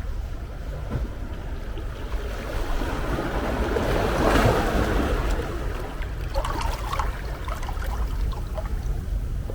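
Ocean waves breaking on a shore over a steady low rumble. One wave swells and crashes about halfway through, then its wash fizzes and crackles as it runs out.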